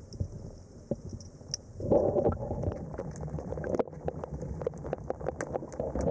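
Underwater sound of a diver's exhaled bubbles gurgling, starting about two seconds in, easing briefly, then building again near the end, over many small sharp clicks.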